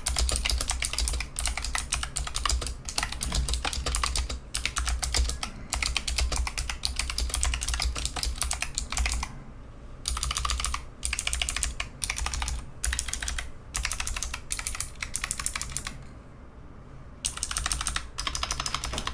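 Fast typing on a Razer Huntsman V2 keyboard with purple optical clicky switches: rapid runs of sharp clicks, broken by short pauses about halfway through and again near the end.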